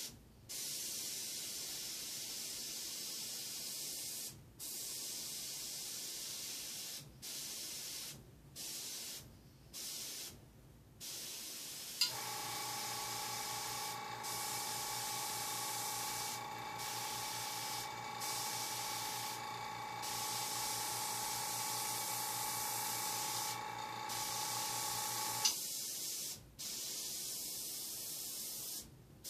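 Airbrush spraying in bursts of air hiss that stop and start every second or two. About twelve seconds in, the air compressor clicks on and runs with a steady hum under the hiss, then clicks off again about thirteen seconds later.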